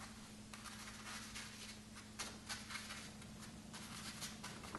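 Soft swishes of an ink-loaded Chinese painting brush stroking across paper, several short strokes a second or so apart.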